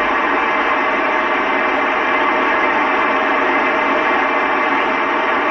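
Steady hiss of an FM amateur radio receiver tuned to the International Space Station downlink on 145.800 MHz, with no voice on the channel.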